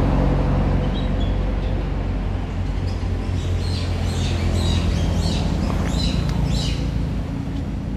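A steady low mechanical hum, with a bird chirping over it in quick repeated calls from about three seconds in until near the end.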